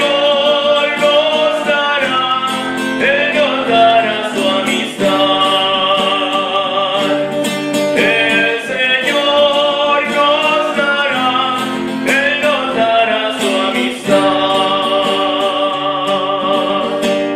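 A hymn sung with guitar accompaniment, the sung phrases ending on long held notes.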